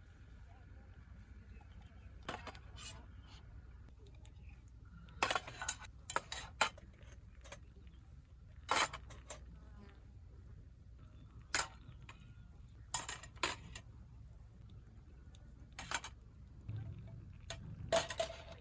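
Scattered clinks and knocks of small hard objects being handled, like dishes and utensils, at irregular intervals and some in quick clusters, over a faint low rumble.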